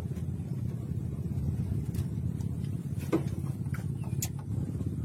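Boat engine running steadily, a continuous low rumble, with a few faint light clicks over it.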